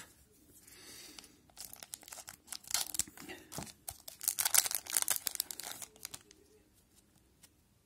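A hockey card pack's wrapper crinkling and tearing as it is ripped open by hand, a run of crackles that starts about a second and a half in and stops about six seconds in.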